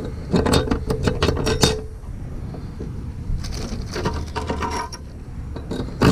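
Stainless steel bolts and washers clinking and rattling as they are dropped through the holes of a metal davit mounting bracket, in a quick run of clicks over the first second or two, then quieter handling and one more sharp clink near the end. A steady low hum runs underneath.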